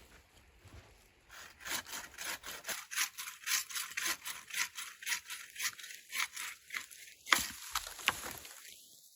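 Hand saw cutting wood in steady back-and-forth rasping strokes, about two to three a second. The strokes stop near the end with a sharp knock or two.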